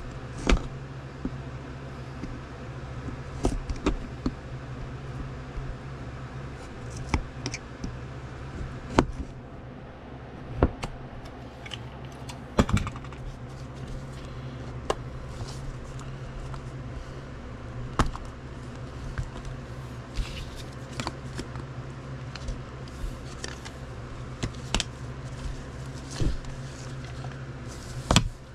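Trading cards and hard plastic card holders being handled: irregular sharp clicks, taps and rustles, over a steady low hum.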